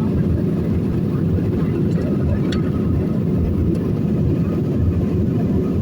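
Steady low-pitched noise of a jet airliner's engines and airflow heard inside the passenger cabin, with a couple of faint clicks in the middle.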